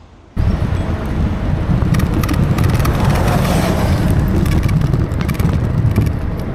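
Wind buffeting the camera microphone on a fast e-bike ride: a loud, steady low rumble that starts suddenly just after the start, with a light rattle of clicks over it.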